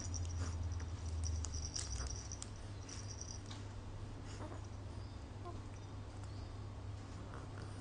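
Light rustling and soft clicks of a plush baby toy with a plastic teether ring being grasped and mouthed by an infant, over a steady low hum.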